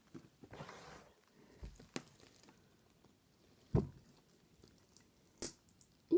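Plastic packaging of a squishy toy being handled and opened: a short rustle about half a second in, then scattered clicks and taps, with one louder thump near the middle.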